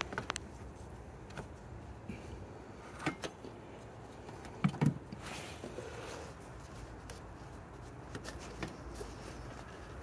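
Plastic coolant overflow tank being pulled up and set aside: a few scattered light knocks and clunks, the loudest a quick double knock near the middle, followed by a brief scraping rustle.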